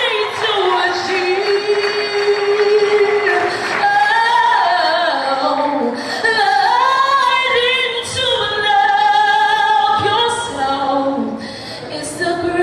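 A girl singing solo through a handheld microphone. Her voice holds long notes that waver and slide in pitch.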